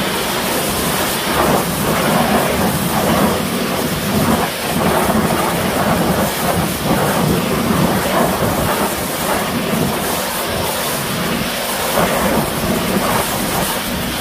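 Pressure washer jet spraying onto an alloy wheel and tyre, rinsing off the wheel cleaner: a steady, loud hiss of water spray.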